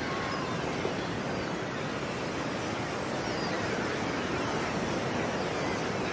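Ocean surf washing steadily on the shore, with a few faint seagull calls over it.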